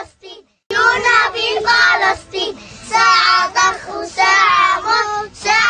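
A group of children singing a song together, with a short break just after the start.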